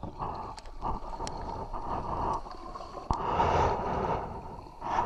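Kayak paddle strokes splashing and water rushing along the hull in shallow, rippling river water, swelling and fading with each stroke. A single sharp knock comes about three seconds in.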